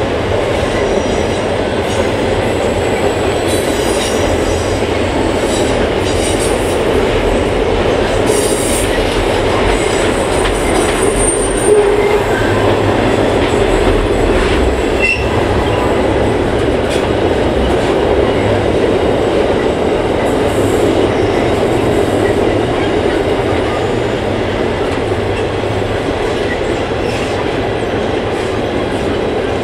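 Container wagons of a long freight train rolling steadily across a steel girder bridge overhead: a continuous rumble of wheels on rail, with faint high wheel squeal now and then and one sharp knock about twelve seconds in.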